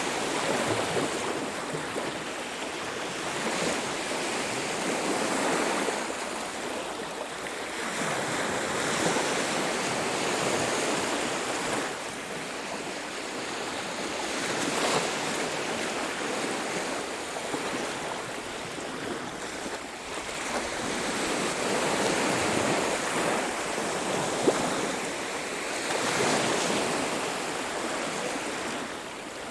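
Ocean surf breaking and washing up a beach, swelling and easing every several seconds. A single short click sounds about three-quarters of the way through.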